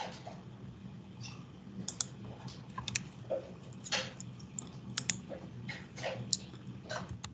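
Scattered, irregular key presses and clicks on a computer keyboard and mouse, over a steady low hum.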